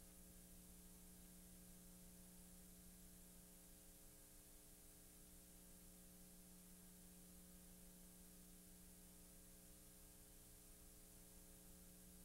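Near silence: a faint steady electrical hum over hiss.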